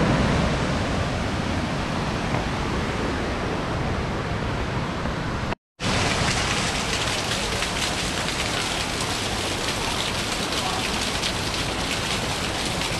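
Small waterfall splashing onto rock and into a shallow pool: a steady rushing hiss. It drops out for a moment about six seconds in and comes back hissier, with the splashing close by.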